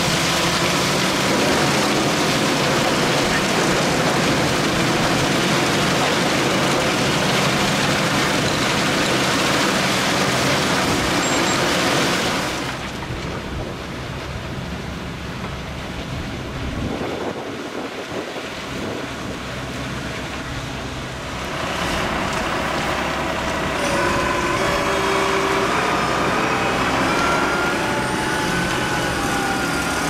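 A crane-fed wood chipper runs loudly, shredding a tree trunk, for about the first twelve seconds. It cuts to the quieter engine of a John Deere 6250R tractor pulling a loaded trailer across a field, and then, from about twenty-two seconds in, to a JCB Fastrac 4220 tractor's engine running with a faint whine.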